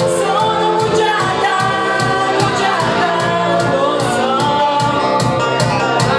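Women singing a pop song into microphones over an amplified karaoke-style backing track with a steady drum beat.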